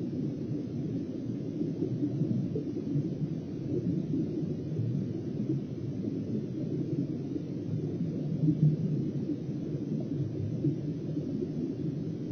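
Steady, muffled low rumble of underwater noise picked up by a fishing camera submerged under the ice, with no distinct events.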